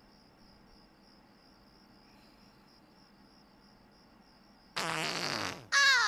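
A cartoon fart sound effect: one loud, pitched blast just under a second long, sinking in pitch as it ends, breaking a near-silent stretch about three-quarters of the way through.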